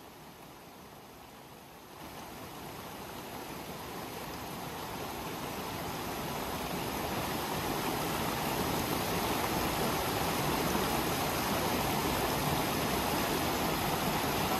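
Steady rushing of flowing water from a stream, faint at first, then swelling gradually from about two seconds in before holding at a steady level.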